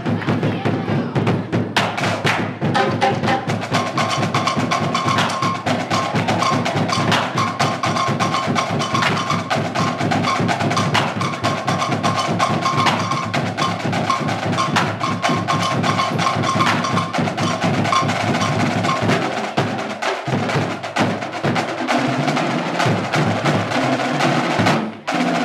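High school marching drumline playing a fast, dense cadence of snare and bass drums, with a brief break shortly before the end.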